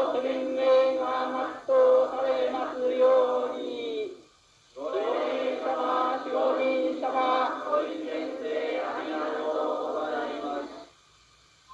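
A man chanting a prayer in long held tones, in two long phrases with a short break for breath about four and a half seconds in.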